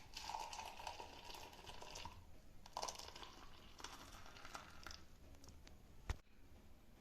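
Faint kitchen handling noises as the honey coffee is mixed into a glass: scattered soft rustling and clattering, with one sharp click about six seconds in.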